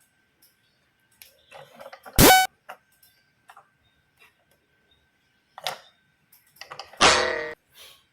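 Plastic toys being handled, with light clicks, one sharp knock about two seconds in and a short buzzy horn-like toy sound about seven seconds in.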